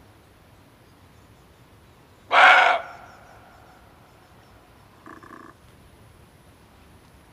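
Male muntjac (barking deer) call: one loud, short bark about two seconds in, then a much fainter second call about five seconds in.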